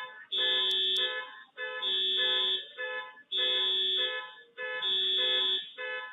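Electronic alarm sounding a repeating pattern of steady tones, a long note and a short one, about once every one and a half seconds.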